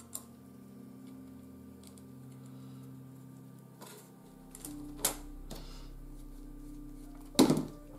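Soft ambient synth music with slow held chords, over a few light clicks of a metal binder clip and a plastic glue stick being handled on a cutting mat, with one sharper knock near the end.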